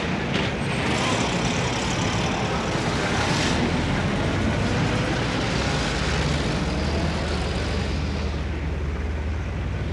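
Heavy road traffic: a continuous mix of engines and tyre noise from passing cars and trucks. A louder vehicle passes about three seconds in, and a low, steady engine drone sets in about halfway through.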